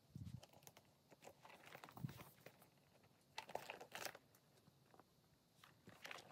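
Faint handling of a leather crossbody handbag: small clicks and rustles in a few short spells as it is fingered, picked up by its strap and turned over. The loudest come around two seconds in and again between three and four seconds in.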